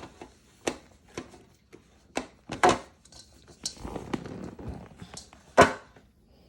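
Irregular knocks and thumps of hands kneading noodle dough in a bowl, with a stretch of rubbing in the middle; the two loudest thumps come about two and a half and five and a half seconds in.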